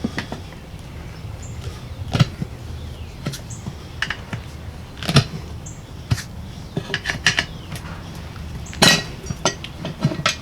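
Screwdrivers clinking and scraping against a steel lawn-tractor wheel rim as they lever the old tire's bead over the rim edge. Scattered sharp metal clicks, loudest about five seconds in and again near nine seconds.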